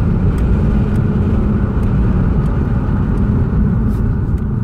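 Car driving, its engine and tyre noise heard from inside the cabin as a steady low rumble, with a few faint clicks.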